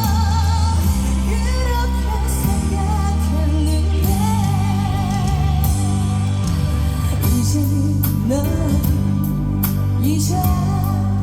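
A female singer performing a Korean trot song live over loud amplified backing music, holding notes with a wide vibrato.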